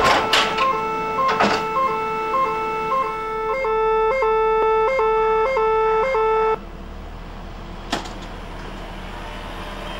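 Tram's electronic door warning beeping in two alternating tones. The tones get louder and longer about three and a half seconds in and cut off suddenly about six and a half seconds in. A couple of knocks come in the first second and a half, and steady street noise with one sharp click near the end.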